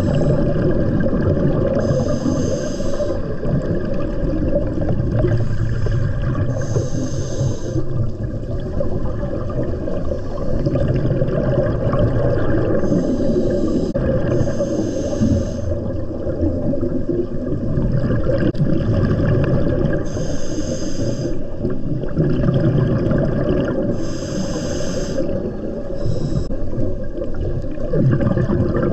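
Scuba diver breathing through a regulator underwater, with bursts of exhaled bubbles about a second long every few seconds over a steady low rumble of water.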